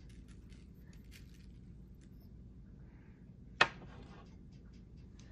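A seasoning shaker being shaken over raw ground meat: faint quick ticks and a light patter in the first second or so. About three and a half seconds in, a single sharp click as a spice container is handled on the glass table, then a few faint small ticks.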